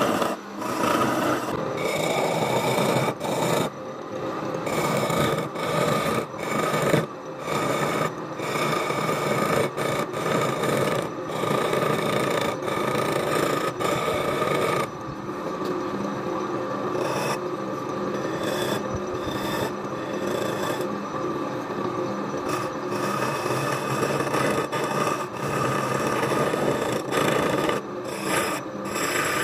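Hand-held turning chisel cutting and scraping wood spinning on a lathe: a continuous rasping, with the lathe's steady hum beneath. The rasping breaks off briefly several times.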